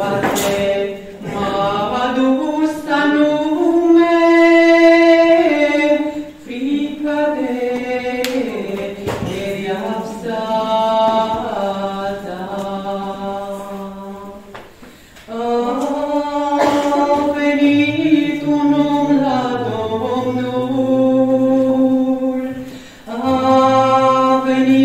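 Romanian Orthodox pricesnă (devotional hymn) sung by unaccompanied voices, in long held phrases with brief pauses between them.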